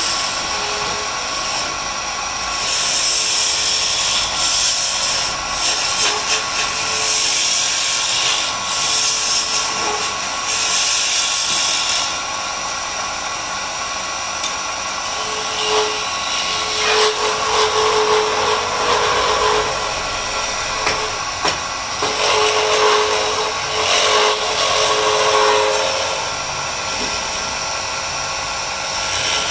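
Wood lathe running with a steady motor whine while a hand-held chisel cuts into the spinning wooden spindle, the cutting noise coming and going in stretches of a second or two.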